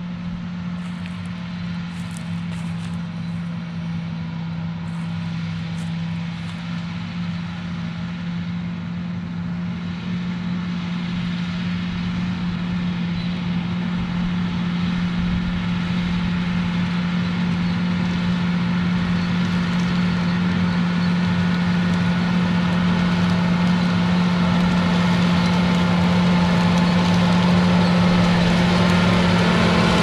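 John Deere 8245R tractor's six-cylinder diesel engine running steadily under load while pulling a Case IH chisel plow, a constant low drone that grows steadily louder as the tractor approaches.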